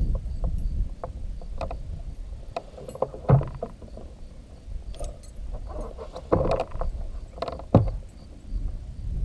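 Scattered knocks and clunks on a small fishing boat, with two louder thumps, one a little over three seconds in and one near the end.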